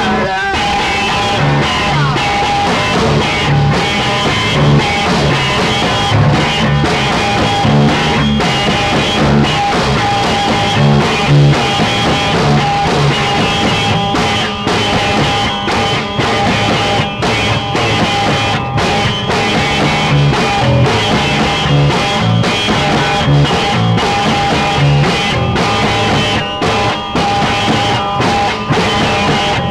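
Loud instrumental rock music, guitar-led, with held tones over a repeating low line and no singing.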